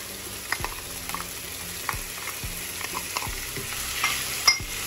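Tuna and sliced vegetables sizzling in hot oil in a stainless steel frying pan while a wooden spatula stirs them, with scattered light clicks and scrapes of the spatula against the pan. A sharp knock near the end.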